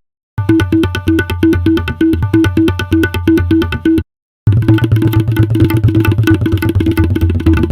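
Sampled Indian percussion loops played from a Kontakt library: fast, dense hand-drum strokes over a deep bass drum tone, with a pitched note repeating. One loop stops about four seconds in, and after a short gap a second loop starts.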